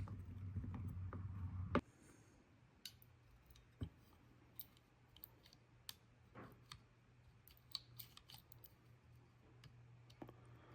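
Small clicks and light metallic ticks of a Cobratec out-the-front automatic knife's parts being handled during disassembly, spaced irregularly. A low hum cuts off with a sharper click about two seconds in.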